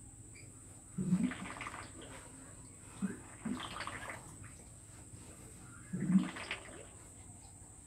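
Water splashing in three short bursts, each under a second long, like a scoop of water being poured out onto the floor.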